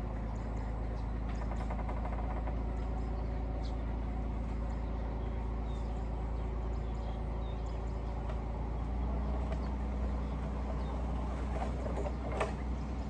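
Heavy diesel engine of construction machinery running steadily. Its note changes about nine seconds in, and a few knocks sound near the end.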